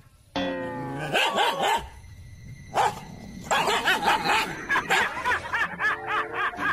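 Dogs barking in quick, excited yaps. A long, falling whine comes about half a second in.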